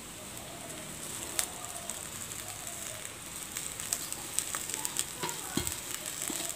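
Hot ground chilli-coconut masala sizzling in a nonstick kadai as chopped spring onion greens are tipped in on top, with scattered small crackles, more of them in the second half.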